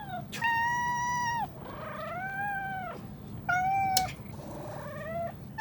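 Domestic cat meowing four times in long, drawn-out calls, some rising and falling in pitch. The owner reads these meows as a demand to be played with.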